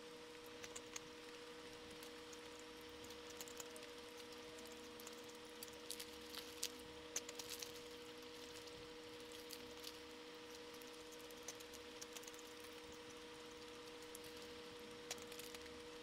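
Faint sounds of fried chicken and paper being handled by hand: scattered soft clicks and crackles, clustered about six to seven and a half seconds in, over a steady low electrical hum.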